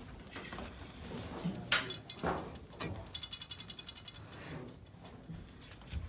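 A few knocks about two seconds in, then a rapid even run of ratcheting clicks, about ten a second, lasting about a second and a half.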